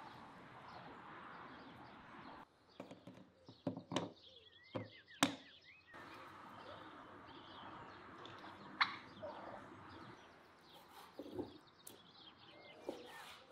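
Yard ambience with free-ranging chickens and turkeys: a low background hiss, scattered sharp clicks and a few short bird chirps near the middle. Near the end come a few knife cuts on a wooden board.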